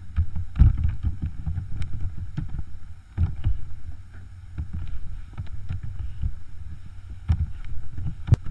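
Typing on a computer keyboard: irregular keystroke clicks, several a second, each with a low thud, and one sharper click near the end.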